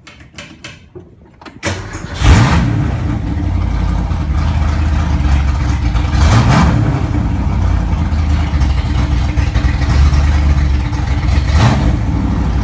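1966 Ford Mustang engine cranked by the starter, catching about two seconds in, then running loud and rough with no exhaust beyond the H-pipe. It is revved up and back down twice, about six seconds in and again near the end.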